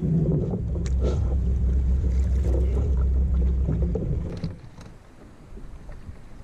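Sit-on-top fishing kayak being paddled: a loud low rumble with a few knocks of the paddle, which drops away about four and a half seconds in to quieter water and hull sounds.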